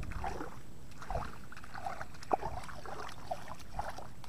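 Water sloshing and splashing in a flooded rice paddy, with a couple of low thuds near the start and about a second in. Irregular short chirping calls run through it in the background.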